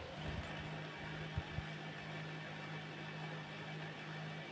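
HP LaserJet P1102 laser printer starting to run: its drive motor and gear train start right at the beginning and turn very smoothly with a steady hum, with two soft knocks about a second and a half in. No clacking, now that the printer's original gear is refitted in place of a wrong one.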